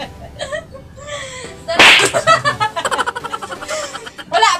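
A single loud, sharp smack about two seconds in: a plastic plate slapped down onto a concrete floor.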